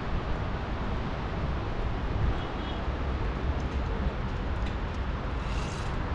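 Outdoor ambience: a steady low rumble with a fluctuating level. A brief hiss comes near the end.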